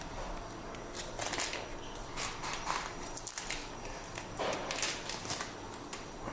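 Foil booster-pack wrapper and trading cards being handled: a string of short crinkles and soft taps, about eight in all, with pauses between them.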